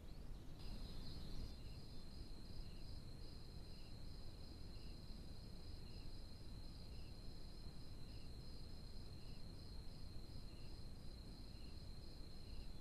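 Night crickets trilling steadily in a high, unbroken trill that starts about half a second in, with a softer, lower chirp repeating about every two-thirds of a second.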